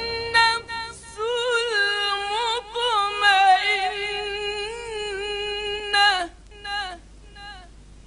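A lone voice singing a winding, ornamented melody, the pitch bending up and down between held notes. It breaks off about six seconds in, followed by a few short, quieter notes.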